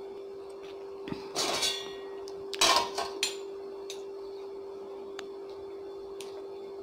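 Steel spoon clinking and scraping against a small stainless-steel bowl: two short scrapes and several scattered light clinks, over a steady hum.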